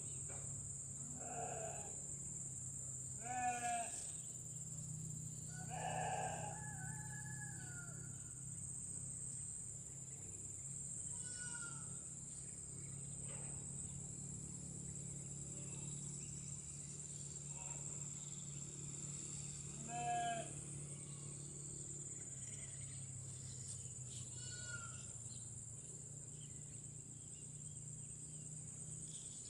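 Several short, wavering animal calls a few seconds apart, the loudest about three and a half seconds in and again near twenty seconds, over a steady high-pitched insect drone.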